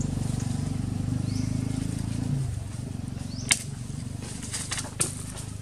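Outdoor ambience: a low steady hum that fades out a little over two seconds in, then a few sharp clicks and crackles, two of them standing out, with faint short high chirps.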